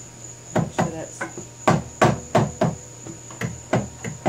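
A quick series of sharp metal knocks, about three a second and uneven, as a steel rod through the lathe's headstock spindle is knocked against it while the spindle assembly is being worked out.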